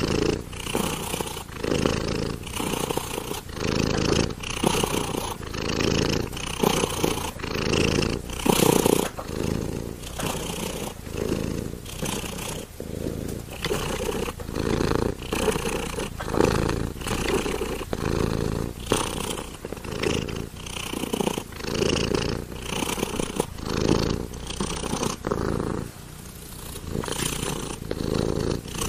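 Domestic cat purring steadily, the purr swelling and fading in a rhythm of about once a second as the cat breathes in and out.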